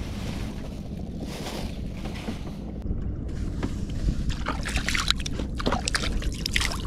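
Steady wind and water noise around a small open boat, with a flurry of sharp clicks and rustles in the second half.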